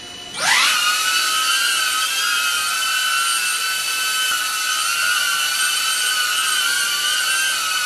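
DJI Avata drone's motors and propellers spinning up sharply just after the start, then running at a steady high-pitched whine made of several tones.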